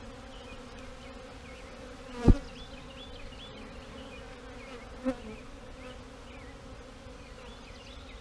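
A swarm of honeybees buzzing steadily around a comb frame held up out of the hive. About two seconds in, one louder buzz sweeps down in pitch, and a smaller one follows about five seconds in.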